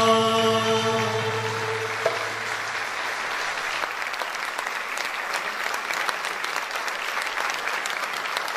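Audience applauding steadily after the song's last held note, sung with choir and ensemble, fades out about a second in.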